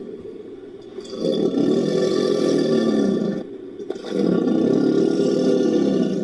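Made-up Dakosaurus creature roar sound effect, mixed from mosasaur (Tylosaurus) sound effects and crocodilian calls: two long, low roars, the first beginning about a second in and the second about four seconds in, each lasting about two seconds; the second cuts off suddenly.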